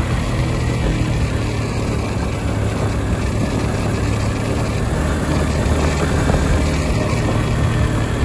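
Motorcycle engine running steadily while riding, with a low even hum under a constant rush of wind and road noise.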